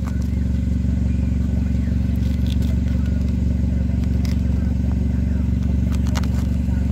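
Hyundai Elantra's 1.6-litre turbocharged four-cylinder GDI engine idling steadily, heard at the tailpipes, freshly started after a Seafoam intake-valve cleaning. A couple of short clicks sound about four and six seconds in.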